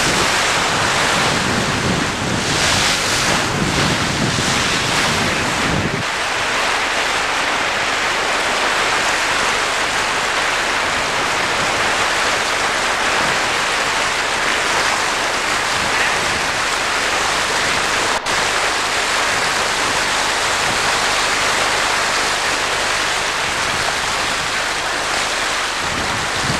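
Steady rushing noise of wind and water, with wind buffeting the microphone; the low rumble eases about six seconds in.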